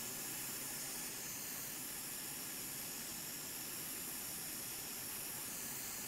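Hot air rework gun blowing a steady hiss of air, preheating a thick graphics card circuit board before desoldering its power connector.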